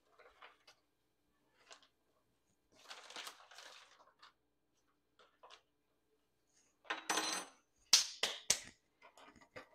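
Small kitchen handling noises: scattered soft rustles, a longer rustle about three seconds in and another about seven seconds in, then several sharp clicks in quick succession. These come from ingredient containers and a plastic zip-top bag of marinating chicken being handled at the counter.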